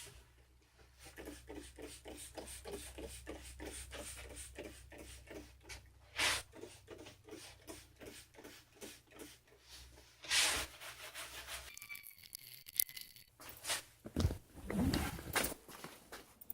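Scrub brush scrubbing carpet cleaner into a car's carpeted floor mat, in quick even strokes about four a second, broken twice by a short hiss. The strokes stop about 12 seconds in, followed by a few irregular rubbing and handling noises.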